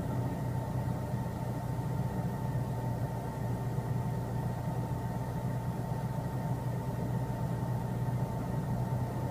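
Steady hum of running machinery: a low drone with a fainter, higher whine above it.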